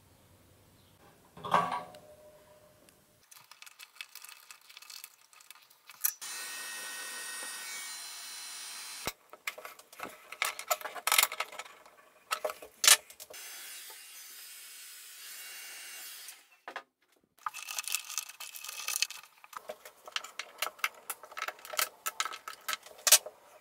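Hand-tool and handling noises on a plastic electrical enclosure: clicks, scrapes and a steady hiss lasting a few seconds as pliers turn a cable gland nut. Near the end, a plastic cable drag chain rattles with many quick clicks.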